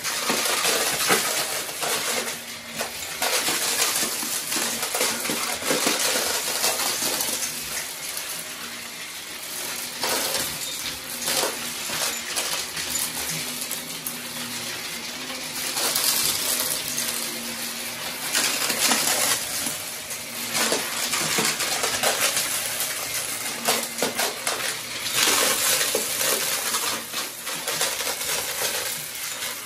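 Upright bagless vacuum cleaner running over carpet, sucking up scattered small hard debris: a steady motor hiss with dense, irregular rattling clicks as the bits are pulled up into the canister.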